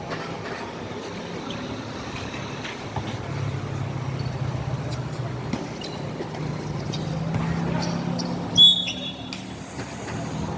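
Basketball game noise: a steady low rumble with scattered sharp knocks of the ball and players on the court, and one short, loud, shrill blast, like a referee's whistle, about eight and a half seconds in.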